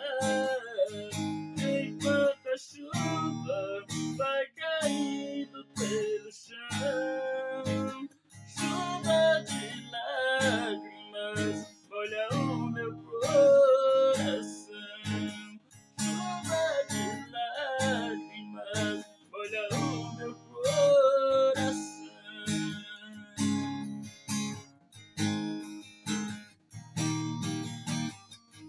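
Acoustic guitar playing an instrumental passage: rhythmic strummed chords with a melody line over them.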